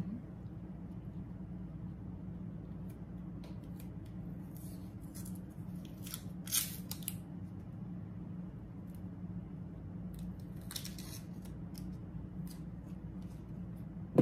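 Kitchen knife cutting an onion on a cutting board: scattered crisp cuts and light taps, the loudest about six to seven seconds and eleven seconds in, over a steady low hum.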